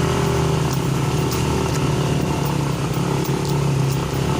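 Motorcycle engine running steadily under load, pulling up a steep forest trail.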